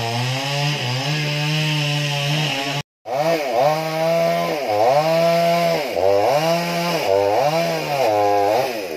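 Chainsaw cutting into the trunk of an old tamarind tree. Its engine pitch dips under load and recovers about once a second as the chain bites, with a brief dropout in the sound about three seconds in.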